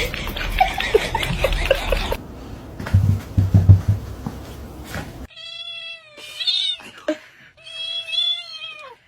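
A cat yowling in three long, drawn-out meows in the second half. Before it comes a stretch of mixed noise with a few heavy low thumps about three to four seconds in.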